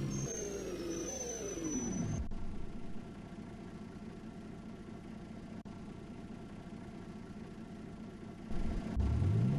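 Bus drive whine falling in pitch and dying away as the bus slows to a stop. A quieter steady hum follows while it stands, then the whine rises again about nine seconds in as it pulls away.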